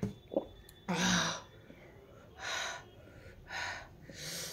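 A person breathing hard: a loud, voiced gasp about a second in, then three softer breathy breaths.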